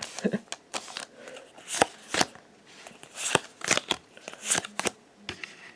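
Pokémon trading cards being handled and slid over one another as a pack is flipped through: an irregular run of quick flicks and swishes.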